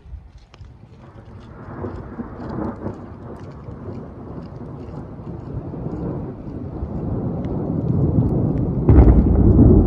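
Rolling thunder: a low rumble that builds steadily louder, then a sudden, louder clap near the end.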